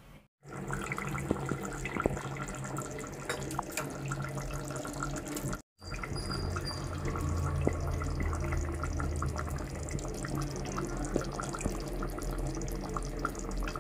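Water running and splashing, with many small scattered clicks and knocks, and a brief dropout about six seconds in.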